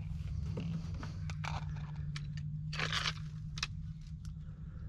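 Dry, dead brush and twigs crackling, snapping and scraping in irregular bursts, the loudest about three seconds in. Under it a motor runs at a steady low hum.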